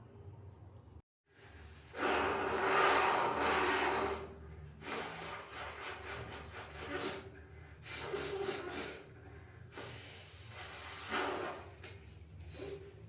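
A person blowing a congested, allergy-blocked nose into a tissue: one long hard blow about two seconds in, then several shorter blows.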